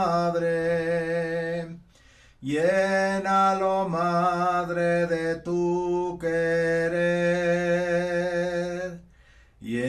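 A man sings a Marian hymn solo in long, slow held notes, breaking twice briefly for breath.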